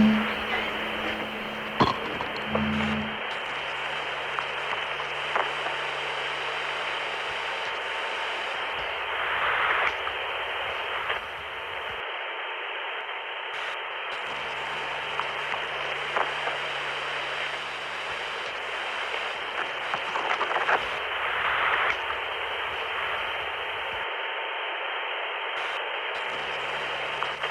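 Radio static buzz squeezed into a narrow, telephone-like band, steady, with scattered crackles and clicks. A low hum under it drops out twice and comes back.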